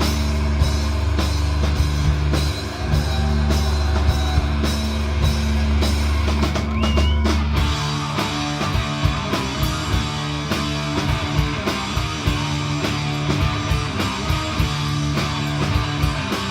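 Rock music played on drum kit and guitar, with a deep sustained bass note that drops out about eight seconds in while the drums keep a steady beat.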